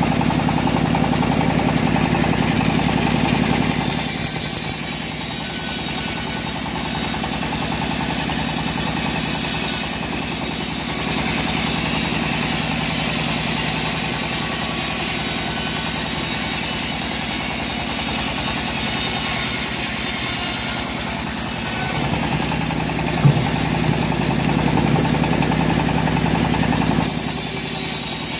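Homemade bandsaw sawmill running steadily, its blade ripping lengthwise through a teak log, with a single sharp knock about two-thirds of the way through.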